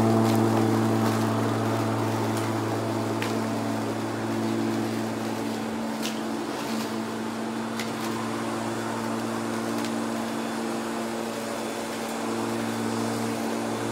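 Bosch Rotak 34-13 corded electric rotary lawnmower running and cutting grass: a steady motor hum that fades as the mower moves away and grows louder again near the end as it comes back, with a few faint ticks.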